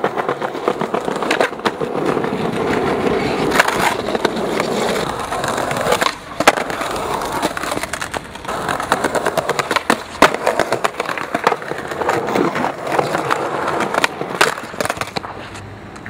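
Skateboard wheels rolling over paving stones, with repeated sharp clacks of the board popping and landing as tricks are tried over and over. It quietens near the end after a slam, the skater down and the board lying on the ground.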